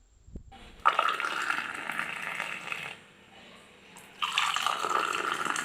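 Liquid being poured in two pours of about two seconds each, with a short pause between them.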